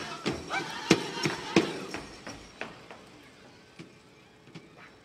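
Drum beats and singing of a Native American dance song, with sharp strikes less than a second apart, dying away about two seconds in; only a few faint taps follow.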